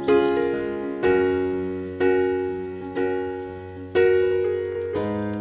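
Background piano music: soft chords struck about once a second, each fading away before the next.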